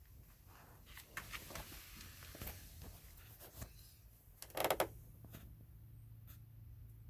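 Handling noises: a scatter of light clicks and knocks, then a short louder rattling clatter about four and a half seconds in, followed by a couple of faint clicks.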